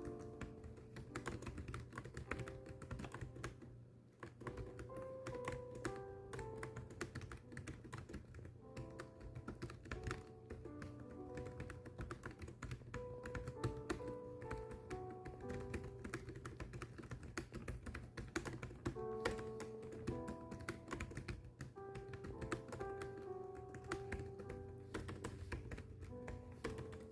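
Fast, continuous keyboard typing, a steady stream of key clicks, heard over soft background music with a slow melody.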